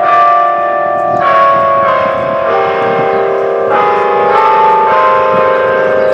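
Bell tower bells chiming, a different bell struck about every second, each tone ringing on and overlapping the next.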